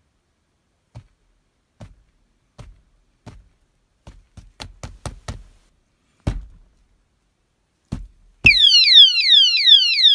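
Komine alarm disc lock being knocked: single knocks about a second apart, then a quicker cluster and a few heavier hits. About eight seconds in, the knocks set off the lock's motion-sensing alarm, a loud siren of fast falling sweeps, about five a second.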